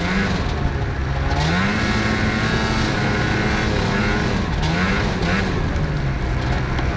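Snowmobile engine running under throttle while riding through snow. Its pitch rises about a second and a half in and holds, then dips and wavers as the throttle is eased and opened again past the middle.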